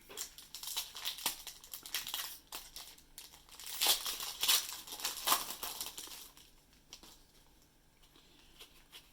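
Foil trading-card pack wrapper crinkling and tearing as it is opened by hand: a run of crackling, loudest about four to five seconds in, that dies away after about six seconds.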